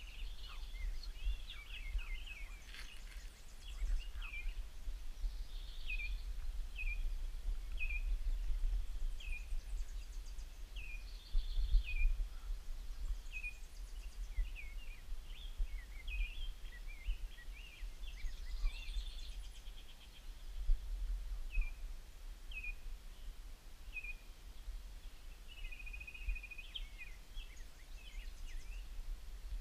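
Wild songbirds calling: a run of short, high, downward-sliding chirps repeated about once a second, with other birds singing higher over them. A low rumble runs underneath, with a brief louder bump near the middle.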